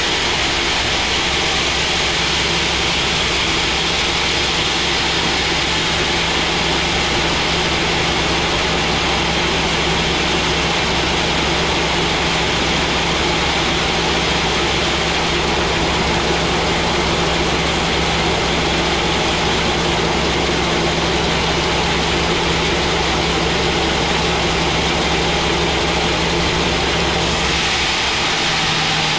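Large log band saw running and cutting lengthwise through a thick mahogany log: a loud, steady machine noise with a constant low hum, shifting slightly near the end.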